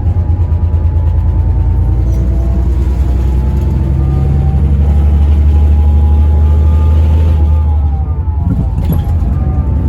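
Daewoo FX116 coach's diesel engine pulling under load. The low drone builds to a peak about six to seven seconds in, then eases off near the end, with a thin higher whine running over it.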